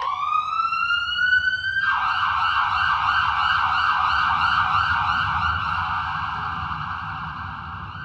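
Emergency vehicle siren: a rising wail that switches abruptly to a fast yelp about two seconds in, then slowly fades away.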